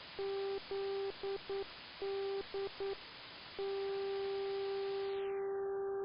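Non-directional aviation beacon (NDB) on 308 kHz received in AM on an SDR: a low tone keyed on and off in Morse code, dashes and dots spelling its identifier, then held as a steady tone from about three and a half seconds in, over radio hiss. Near the end the hiss turns duller as the receiver's filter bandwidth is narrowed.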